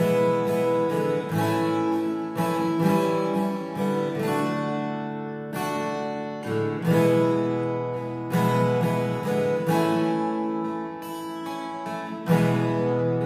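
Cutaway acoustic guitar played solo: chords strummed and picked, a new stroke every half second to a second, each left to ring.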